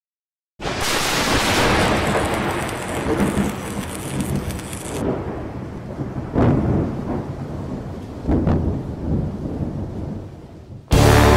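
Thunderstorm: a dense rain hiss for the first few seconds, then rolling thunder with two louder claps about six and eight seconds in. Music starts near the end.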